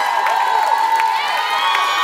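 Crowd cheering and whooping, many high voices shouting over one another, with some clapping.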